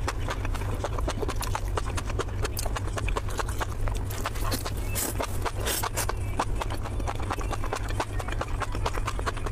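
Close-miked eating sounds: wet, clicking chewing of grilled enoki mushroom rolls, a rapid run of quick mouth clicks and squelches, over a steady low hum.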